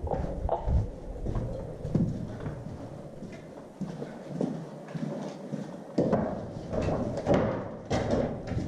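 Boots stepping and scuffing over a gritty, debris-strewn concrete floor, an irregular series of knocks and scrapes that comes thicker in the second half.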